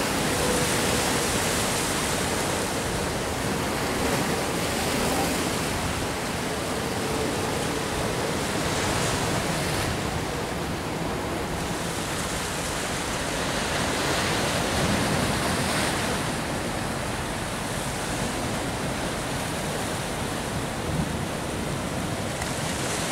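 Sea waves washing and breaking against a rocky shore: a steady rush of surf that swells now and then, with some wind on the microphone.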